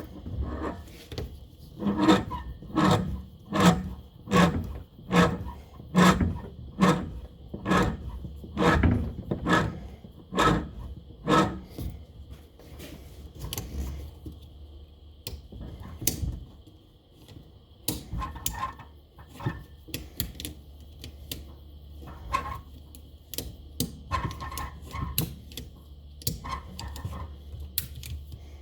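Hand ratchet worked in a steady run of strokes, about one every 0.8 seconds for roughly ten seconds, then slower scattered clicks and knocks of metal tools handled, while a Harley fork spring is compressed and its top cap fitted.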